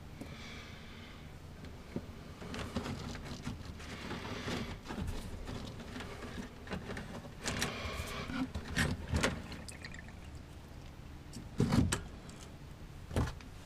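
Handling noises while an RV fresh-water pump is worked loose and lifted out by hand: irregular clicks, knocks and rustling of hoses and fittings, with a louder knock near the end.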